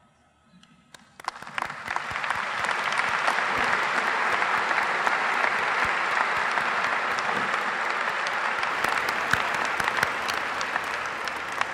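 Audience applause: a few scattered claps, then full, steady clapping from about a second in, easing off slightly near the end.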